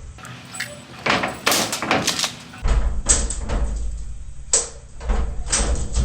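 Repeated clattering, clacking and banging of a locked truck door being worked and forced open. The knocks come in irregular clusters from about a second in, with a low rumble underneath in the second half.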